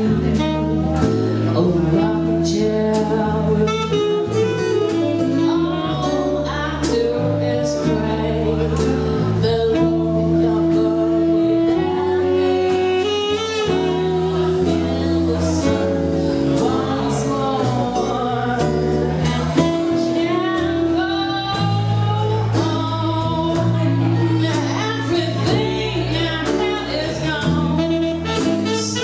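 Live jazz band playing a slow ballad: a female singer holds long, sliding notes over acoustic and electric guitars, bass and drums, with a tenor saxophone in the band.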